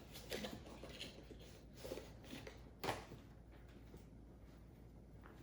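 Faint handling of clothing packaging: a few soft rustles and taps as a packaged pair of boxer briefs is opened, the loudest about three seconds in.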